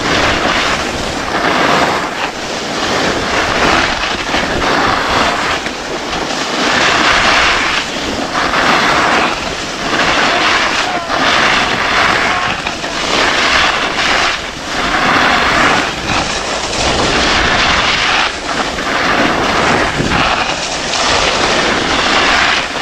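Skis sliding and scraping over packed snow at speed, the scrape swelling and easing every one to two seconds.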